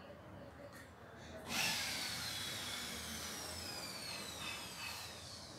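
A high motor whine starts suddenly about a second and a half in, then falls steadily in pitch as it slowly fades.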